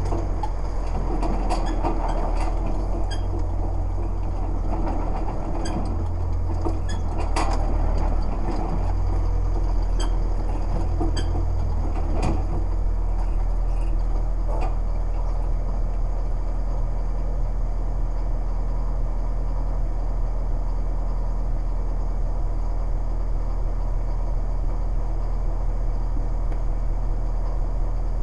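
Engine of a small work vehicle running, with clanks and rattles from the body for the first dozen seconds while it moves. Then, about halfway through, it settles into a steady idle with the vehicle standing still.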